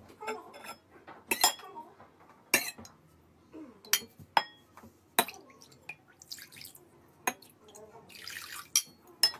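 A metal ladle clinks against ceramic bowls several times. About eight seconds in, a short trickle of water pours from the ladle into a small ceramic bowl.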